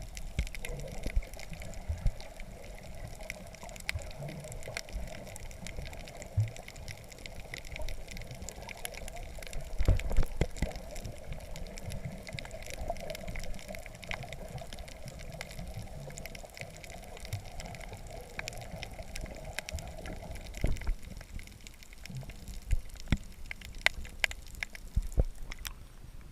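Water splashing and sloshing around a sea kayak being paddled, with scattered sharp knocks, the loudest about ten seconds in. A steady hum runs underneath and stops a few seconds before the end.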